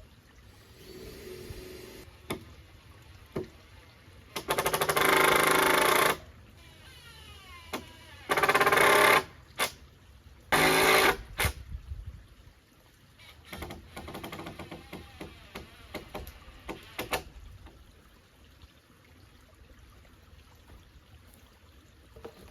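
A power tool's electric motor run in three short bursts of about one to two seconds, the first winding down with a falling whine, with scattered knocks and clatter of wood handling between them.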